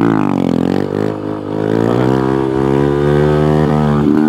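Honda Grom MSX125 single-cylinder 125 cc engine pulling a wheelie. Its pitch dips right at the start, then climbs steadily as the bike accelerates, and holds near the end.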